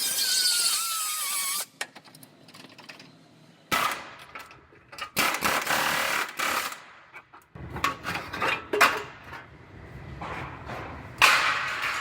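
A power tool run in short irregular bursts, a second or two each, while cutting sheet metal out of a damaged car, with a loud burst near the end.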